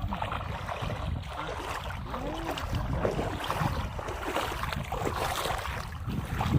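Water sloshing and splashing in shallow flood water, with wind buffeting the microphone.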